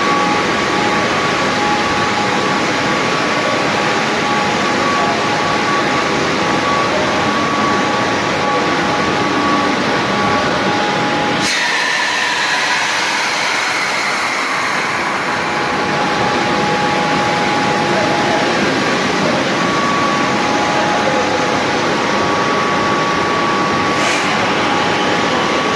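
Steady running noise of industrial plant machinery: a constant wash of noise with two steady hum tones. About halfway through, the sound changes abruptly, the low end drops away and a whine falls in pitch. A short click comes near the end.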